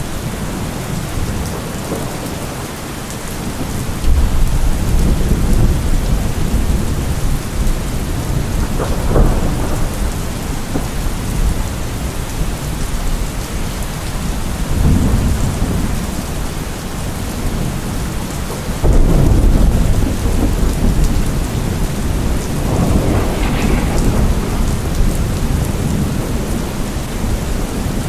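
Steady rain falling, with deep rolls of thunder swelling in and fading several times; the loudest rumbles break in suddenly about four seconds in and again about two-thirds of the way through.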